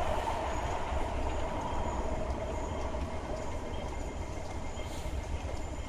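MTR West Rail Line electric train running through the underground station: a steady rumble and hum of wheels and motors that slowly fades.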